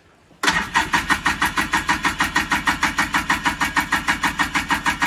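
Two-stroke ATV engine cranking on its electric starter with starting fluid sprayed in, a steady chug of about five or six compression beats a second that begins about half a second in. It turns over without firing or catching.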